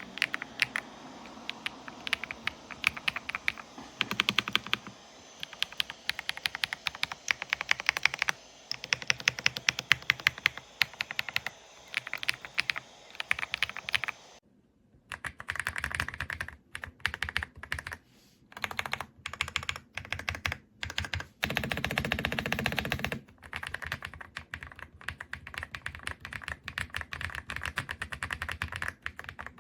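Typing on an Ajazz AK820 Pro gasket-mount mechanical keyboard: rapid, uneven runs of keystroke clacks, with a short break about halfway before typing resumes.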